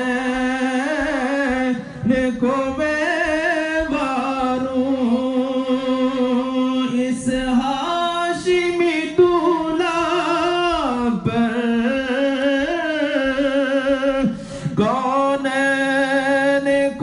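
A man singing an Urdu naat unaccompanied, holding long, wavering notes that slide between pitches, with a few short breaks for breath.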